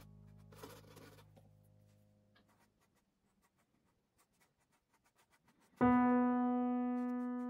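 Background piano music: a soft chord fades out over the first two seconds, with a few faint scratches of a brush, then near silence, and about six seconds in a new piano chord is struck loudly and rings on, slowly dying away.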